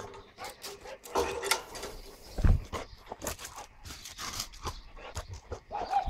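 A dog making short sounds and panting, mixed with knocks and rustling as the handheld camera moves; one heavy thump about two and a half seconds in.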